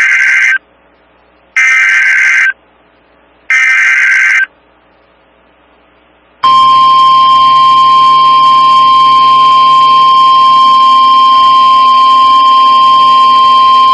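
Emergency Alert System SAME header on a weather radio broadcast: the end of one burst of warbling digital data and then two more bursts of about a second each, a second apart. After a short pause, the NOAA Weather Radio single-tone warning alarm starts about six and a half seconds in and holds steady, signalling a severe thunderstorm warning.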